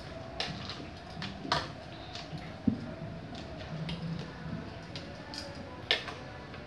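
Scattered sharp clicks and knocks as the metal beaters and the plastic body of an electric hand mixer are handled and fitted together, with no motor running, over a faint steady background hum.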